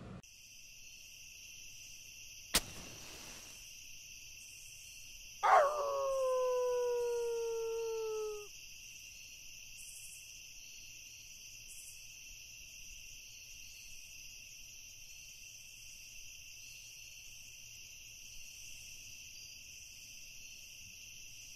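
A single drawn-out animal howl lasting about three seconds, falling slowly in pitch, over a steady high insect chirring. There is one sharp click about two and a half seconds in.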